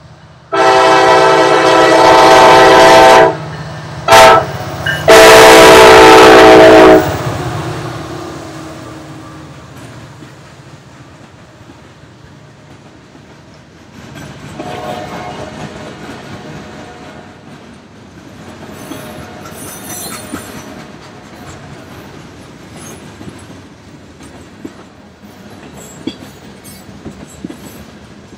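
Freight locomotive air horn sounding three blasts (long, short, long), the loudest sound here. The train then rolls past, its wheels clicking and clattering over the rail joints, with a few faint high squeals.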